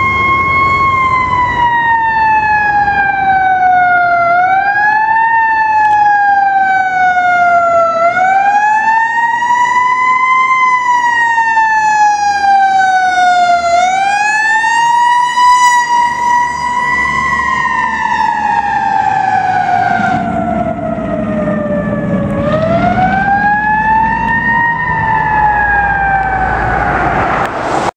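Fire engine siren wailing, its pitch rising and falling in slow, uneven sweeps of a few seconds each. A deeper rumble joins underneath in the last several seconds.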